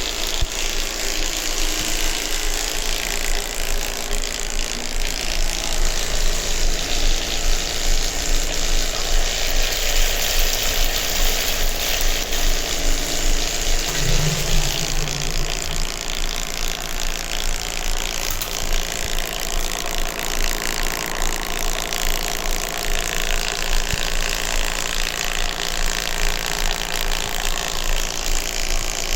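Electric water pump motor running steadily with a constant hum and an even rushing noise.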